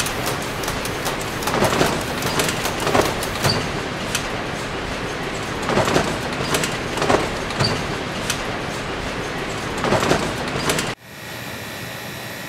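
Bread-factory production-line machinery running: a steady mechanical clatter with repeated sharp clacks about every second. Near the end it cuts off suddenly to a quieter, steady machine hum.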